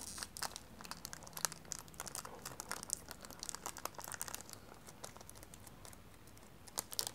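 Foil wrapper of a Pokémon card booster pack crinkling as it is handled, a quick run of small crackles that thins out in the middle and picks up again near the end.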